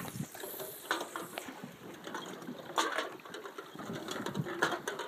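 Small waves lapping and slapping against the side of a boat in irregular splashes, a few louder ones standing out.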